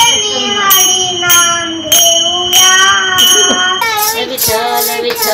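Small hand cymbals (taal) struck in a steady beat, about one strike every two-thirds of a second, each stroke ringing on, with a child's voice singing a devotional song over them. Near the end the song and beat change to a busier pattern.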